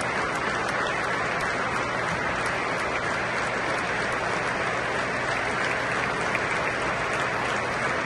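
Large football-stadium crowd applauding, a steady wash of clapping from the stands.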